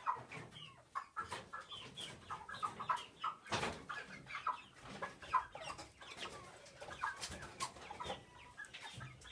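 Chickens clucking, many short calls, with scattered sharp clicks and knocks.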